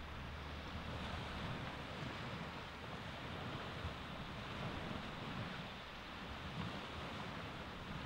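Baltic Sea surf washing onto the beach: a steady, even rush of small waves with a low rumble underneath.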